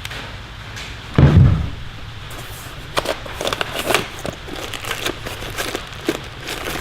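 Hand tools being handled in a soft-sided tool bag: a dull thud about a second in, then a run of light clicks and clatters as items are moved.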